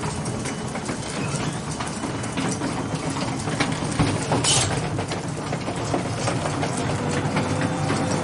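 Overhead garage door being raised by an electric opener: a steady motor hum with the door's rollers and chain rattling and clicking, and a louder clatter about four seconds in.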